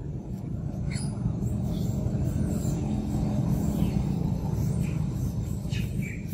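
Low, steady rumble that swells slightly in the middle, with a few faint high chirps near the end.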